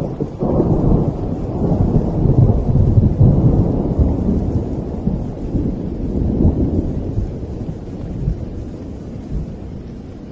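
Long rolling thunder rumbling over steady rain. It swells soon after the start, peaks a few seconds in, swells again about six seconds in, then dies away.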